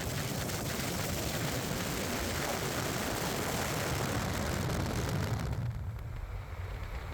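Steady rushing road noise of a vehicle driving, with a low rumble and no speech; the upper hiss eases about five and a half seconds in.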